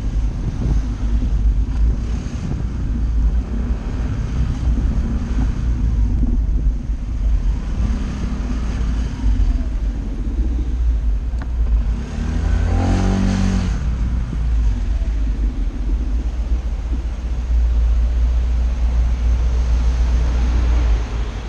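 Wind rumbling over the action camera mounted on a Honda SH 125i scooter, mixed with the scooter's single-cylinder engine and tyre noise while riding through city streets. A brief louder pitched sweep, like a vehicle passing close, comes about two-thirds of the way through.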